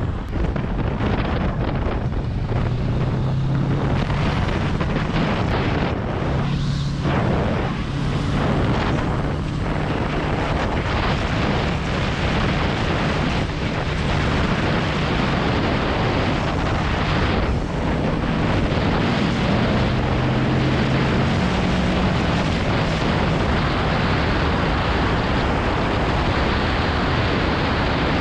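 Motorcycle riding at road speed: heavy wind rushing over the action camera's microphone, with the engine's low hum underneath shifting in pitch now and then.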